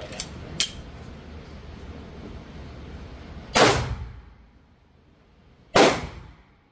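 Two loud, sharp bangs about two seconds apart, each ringing out briefly, after a couple of light clicks near the start.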